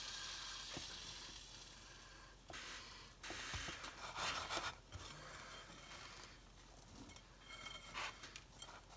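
Crushed Cap'n Crunch cereal crunching and rustling in a glass pie plate in irregular bursts as a slice of egg-soaked bread is pressed into the crumbs by hand, over a faint sizzle from a skillet on the stove that fades over the first couple of seconds.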